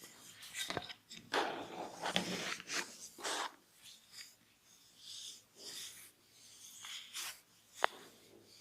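Hands rubbing and sliding over skin in a massage, a run of swishing strokes, then one sharp crack near the end.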